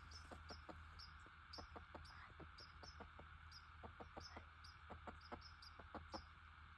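Near silence: a faint, short, high-pitched chirp repeating two to three times a second, over a low steady hum.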